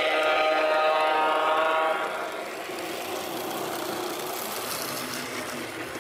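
O gauge model diesel locomotive's sound-system horn blowing one long, steady blast of about two seconds, followed by the steady rumble of the locomotive and passenger cars rolling past on the track.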